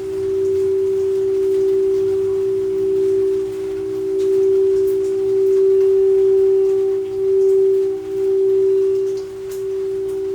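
Singing bowl sustaining one steady, pure low tone with a faint higher overtone, swelling and dipping in loudness several times as it is kept ringing.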